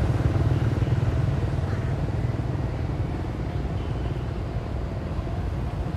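Motorbike engine running, its low pulsing drone slowly fading.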